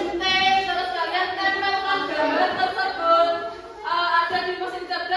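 Singing voices holding sustained notes, with a short break just before four seconds in; the room's echo is audible.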